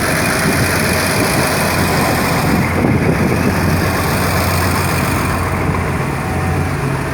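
Tugboat diesel engine running steadily: a constant low drone with a rushing noise over it.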